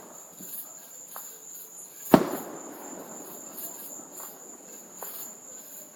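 One loud firework bang about two seconds in, its echo dying away over about a second, among a few faint distant pops of other fireworks. A steady chorus of night insects such as crickets keeps up underneath.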